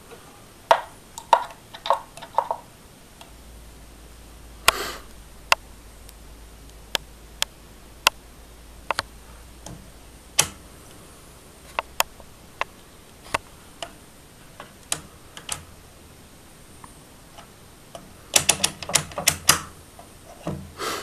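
Sharp clicks from the push-buttons and rotary selector switch of a VA18B digital multimeter being worked by hand. Single clicks are scattered through the stretch, with a quick run of clicks near the end.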